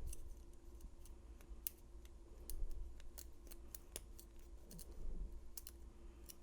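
A lock pick and tension wrench working the pins of an old pin-tumbler padlock during single pin picking: faint, irregular metallic clicks and light scrapes.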